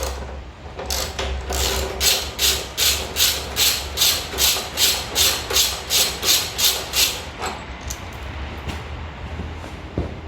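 Socket ratchet undoing a motorcycle seat bolt, its pawl clicking in a quick even run of about three strokes a second for several seconds, then a few softer knocks as the bolt and tool are handled.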